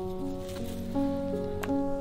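Background music: a melody of held notes changing about twice a second, with a single sharp click near the end.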